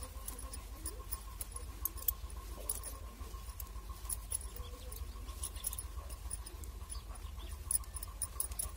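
Faint, irregular light clicks of metal knitting needles tapping together as stitches are worked, over a low steady hum.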